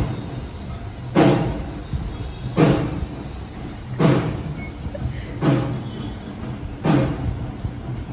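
Background music carried by a deep drum beat, struck about once every second and a half, six hits in all.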